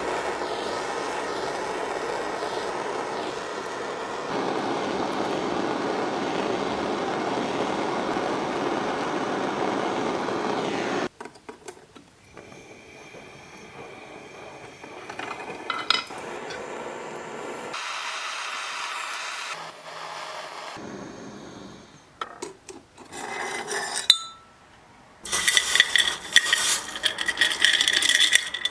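Sterling silver being worked at the jeweller's bench: a loud, steady rasping rub for about eleven seconds that stops abruptly, then quieter handling with a few sharp taps, and near the end a run of bright metallic clinks as the silver chain links knock together.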